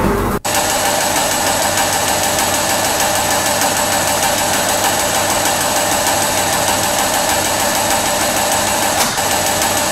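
Bakery dough-dividing machinery running steadily: a continuous mechanical drone with a constant whine, starting abruptly about half a second in.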